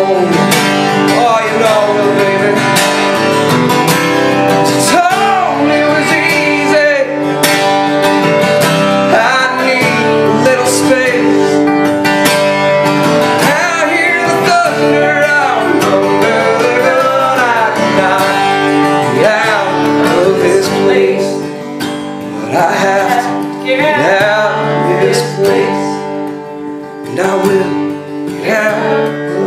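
Live acoustic music: acoustic guitar playing with a gliding melody line over it, a little quieter in the last third.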